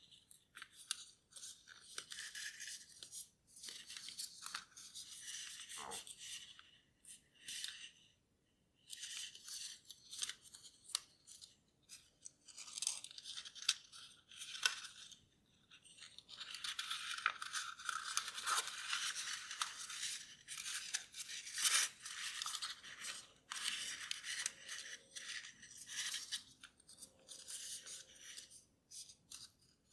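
Origami paper rustling and crinkling as it is folded and creased by hand, in irregular bursts with a few sharp snaps as creases are pressed.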